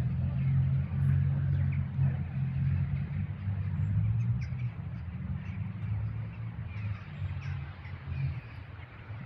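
Low, uneven rumble of outdoor city background noise, with a few faint short high chirps or crunches over it.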